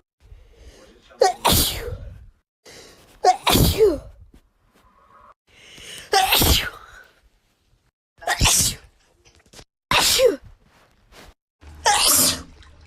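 A young woman sneezing six times in a row, about every two seconds, with quieter breaths between: an allergy sneezing fit.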